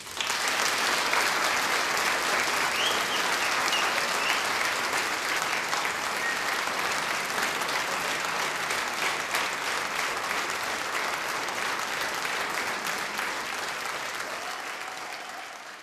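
Theatre audience applauding, a dense clapping that starts suddenly and slowly dies down near the end.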